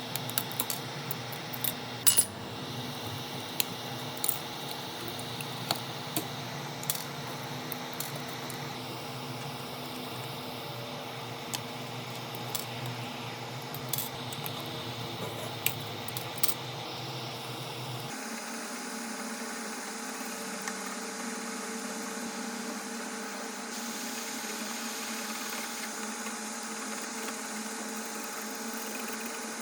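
Light clicks and taps of small metal tools and phone parts on a hard work surface, scattered through the first half or so, over a steady hum.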